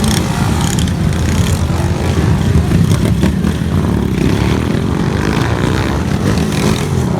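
Motorcycle engines running, with some revving.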